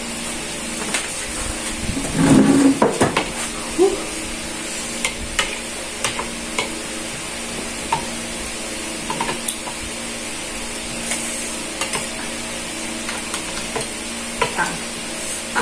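Metal spoon tapping and scraping in a soup bowl as people eat, with scattered light clicks of cutlery and dishes over a steady background hiss. A louder clatter and scrape comes about two to three seconds in.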